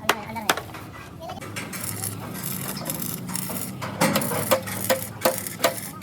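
Repeated sharp knocks, about two a second at first, then closer together and louder from about four seconds in, some with a short ring. Low background voices.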